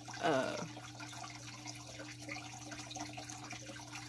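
A short vocal sound from a person, falling in pitch, just after the start, over a steady low electrical hum and faint hiss.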